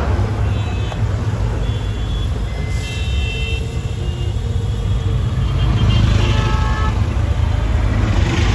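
Steady low rumble of road traffic, with several short vehicle horn toots in between.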